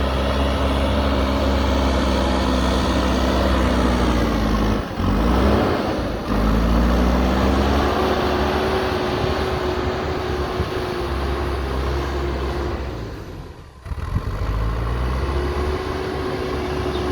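JCB backhoe loader's diesel engine running at working revs, its pitch sagging and then climbing back about five seconds in as the load and revs change. The level dips briefly about three-quarters of the way through.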